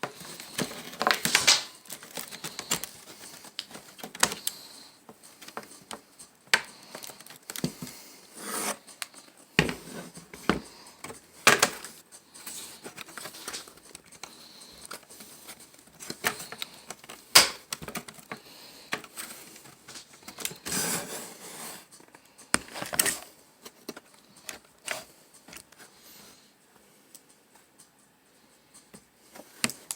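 Laptop parts being handled and worked on: irregular clicks, taps and short scrapes and rustles, sparser near the end.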